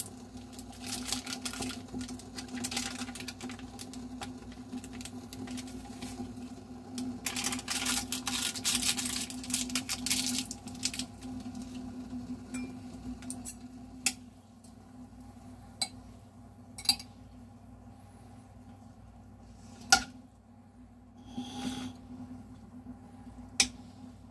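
Kitchen handling sounds at a hob over a steady low hum: rustling during the first few seconds and again near the middle, as seasoning from a packet goes into a glass saucepan of simmering dumplings. In the second half come five separate sharp clicks, typical of metal chopsticks tapping the glass pot.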